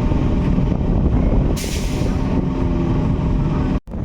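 Electric local train's steady running rumble and hum, with a short hiss of air about one and a half seconds in. The sound drops out abruptly for a moment near the end.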